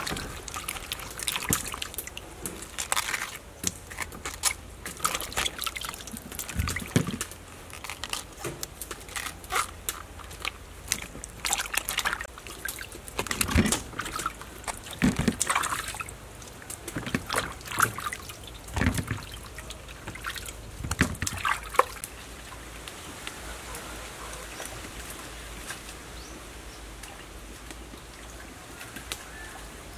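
Water splashing and sloshing in a basin as hands rub and rinse red cabbage and lettuce, in irregular splashes and drips. After about two-thirds of the way through the splashing stops, leaving a quieter steady background hiss.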